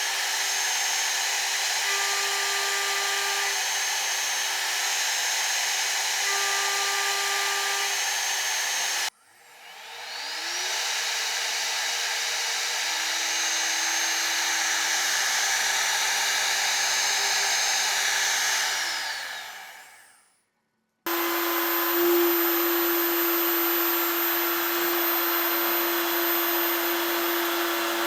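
CNC milling machine's spindle running and cutting, heard in three separate clips. In the middle clip the spindle spins up with a rising whine, cuts, then winds down with a falling whine.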